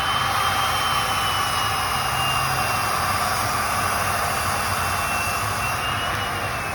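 Machine tool in an aircraft engine machine shop running steadily, with a high whine over a constant rushing noise; the whine wavers slightly and drops in pitch near the end as the machine winds down.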